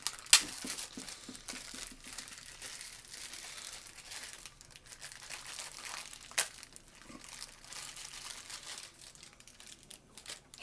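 Packaging being handled and unwrapped by hand: irregular crinkling and rustling, with a sharp snap about half a second in and another about six seconds later.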